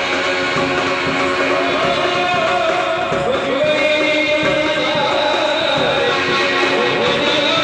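Background music with singing and plucked string instruments.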